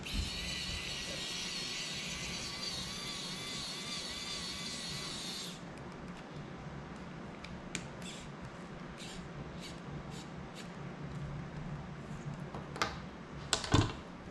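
Small pen-style electric screwdriver running with a steady high whine for about five and a half seconds as it drives a screw into a small drone's frame. Then scattered light clicks and taps, with two louder sharp knocks near the end.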